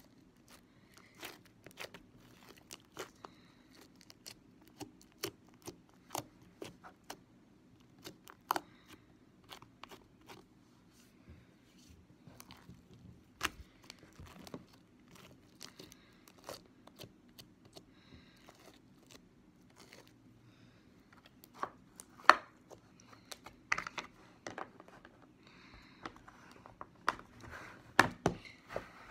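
Slime being squeezed and stretched by hand, giving irregular sticky clicks and pops, with a few louder pops in the second half.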